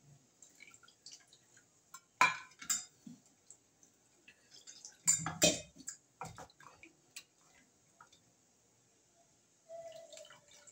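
Metal utensils knocking against an aluminium kadai of rasam: a few sharp clinks about two seconds in and again around five to six seconds in, amid faint sounds of liquid being poured and stirred.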